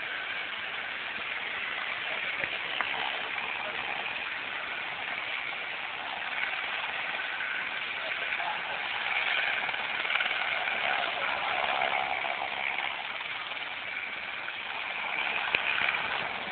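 Steady engine noise, a little louder in the middle.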